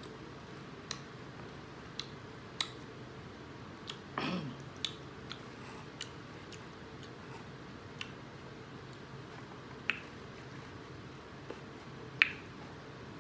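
Eating sounds: chewing with scattered sharp mouth clicks and smacks, about one every second or two, the loudest near the end. A short downward-sliding mouth sound comes about four seconds in.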